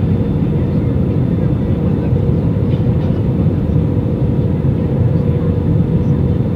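Cabin noise inside an Airbus A320 during its landing approach: a steady low rumble of the jet engines and rushing air, with a faint steady hum running through it.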